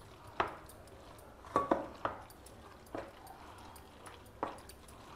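A wooden spoon mixing curd into cooked rice in a stainless steel bowl, knocking against the bowl about six times at irregular intervals, with a soft wet stirring between the knocks.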